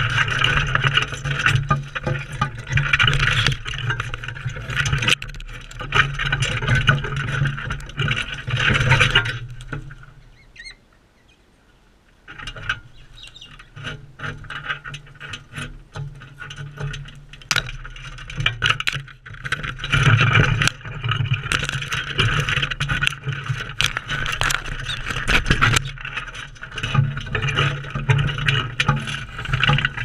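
A flock of galahs at a feeder, screeching and chattering close up, with many sharp clicks from beaks pecking and scraping at the tray and seed. The din drops to a short lull about ten seconds in, then builds again.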